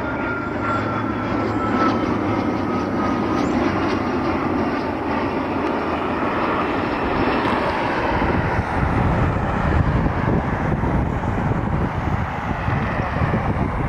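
Learjet business jet's twin turbofan engines passing on its landing approach, a steady jet noise with a thin whine that slowly falls in pitch over the first few seconds. A deeper rumble builds in the second half.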